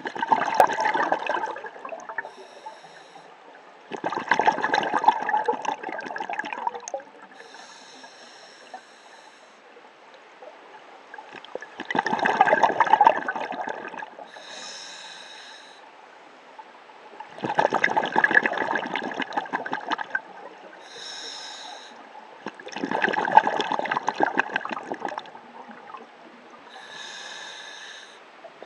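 Scuba diver breathing through a regulator underwater: five long bubbling exhalations, each about two seconds, with a short hissing inhalation through the demand valve between each pair.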